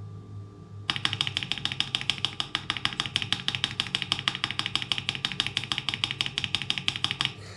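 Mechanical keyboard spacebar pressed rapidly over and over, a fast, even run of clacking keystrokes that starts about a second in and stops just before the end.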